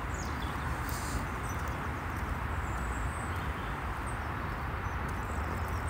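Steady outdoor background noise: an even rushing sound over a constant low rumble, with a few faint high bird chirps about halfway through.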